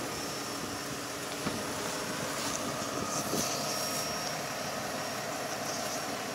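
A machine engine running steadily during a crane lift, an even drone with no change in speed.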